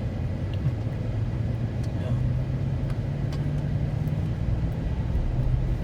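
Car driving on a road: a steady low engine and tyre rumble from inside the moving vehicle, with a few faint clicks.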